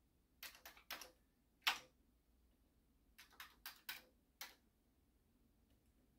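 Keys of a Drean Commodore 64C keyboard being typed, about nine separate clacks in two short runs, the loudest near two seconds in. The keyboard's contacts have just been cleaned and it is being tested, with some keys still a little sticky.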